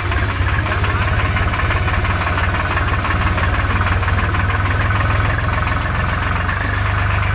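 Tractor's diesel engine running steadily with an even, fast knocking pulse.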